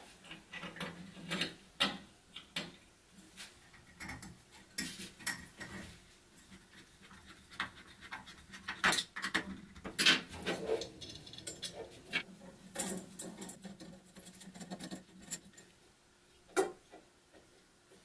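Irregular light clicks, taps and scrapes of a metal hacksaw blade and frame being handled as the blade is fitted into the frame, with a few sharper clicks scattered through.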